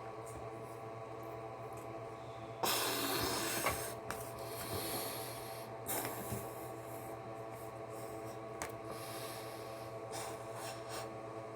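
Rubber rocket balloons being handled and blown up: a burst of rushing, rubbing noise about two and a half seconds in, lasting about a second, then lighter rubbing sounds, over a steady hum.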